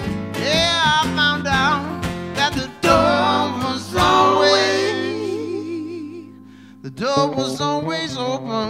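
Live acoustic band music: acoustic guitars and electric bass guitar playing, with a man singing long, wavering notes over the first half. The music drops softer around six seconds in, then strummed guitar chords come back in.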